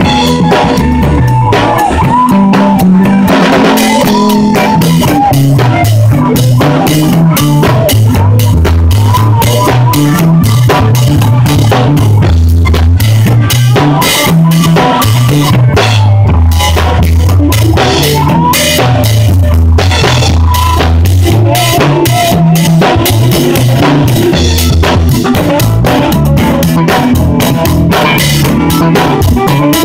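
Live band playing an instrumental passage: drum kit, electric bass and electric guitar. The drum hits are dense and up front, heard from right beside the kit, over a moving bass line.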